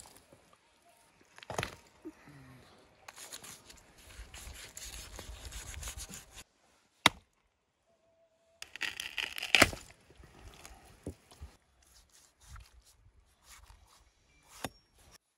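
Axe and large knife chopping raw cow's head and feet pieces on a wooden stump: a few sharp chops, the loudest about seven and nine and a half seconds in, with stretches of scraping and handling of the meat between them.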